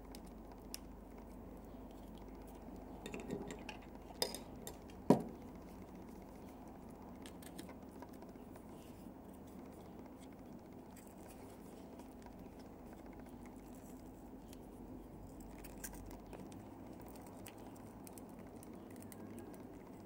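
A few light clicks and taps from a GLO Hyper X2 heated-tobacco device being taken apart, bunched between about three and five seconds in, the sharpest near five seconds, over a steady low hum.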